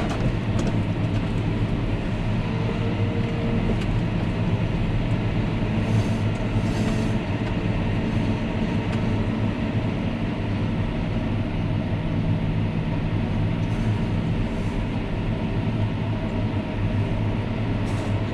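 Diesel engine of heavy harvest machinery running steadily: a continuous low drone with an even rumble.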